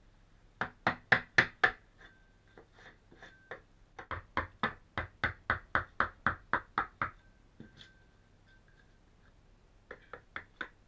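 Claw hammer striking a wide blue-handled chisel, cutting around the edge of the caravan floorboard. The blows come in bursts: about five loud blows a second in, a quicker run of a dozen or more, about four or five a second, from about four to seven seconds in, and a few lighter taps near the end.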